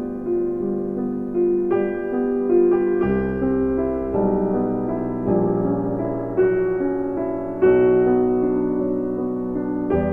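Solo piano music, a slow melody over held chords with new notes struck every second or so.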